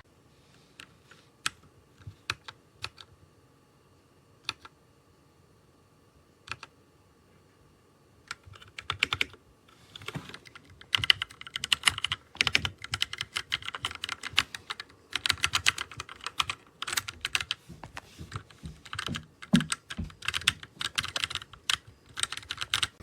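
Keystrokes on a TMKB T68SE 60% mechanical keyboard: a few scattered single key presses, then fast continuous typing from about eight seconds in.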